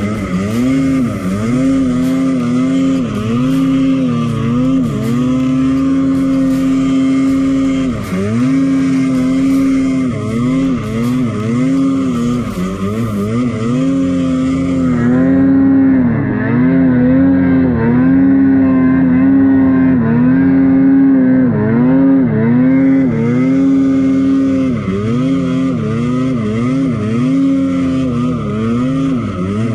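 Mountain snowmobile engine running at high revs, the pitch dropping and surging again every second or two as the throttle is worked, with the sled labouring through deep snow in a gully.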